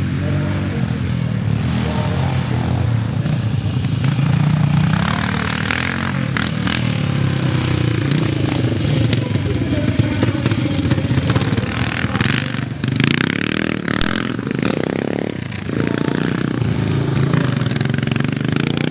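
Vintage CCM scrambles motorcycle being ridden round the course, its engine note rising and falling with the throttle.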